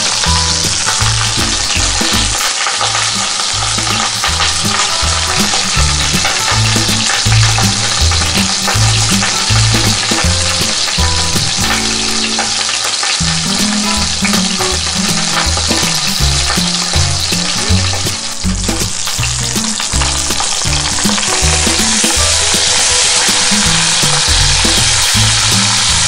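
Prime rib roast searing in hot oil and rendered fat in a cast-iron Dutch oven: a steady, loud sizzle.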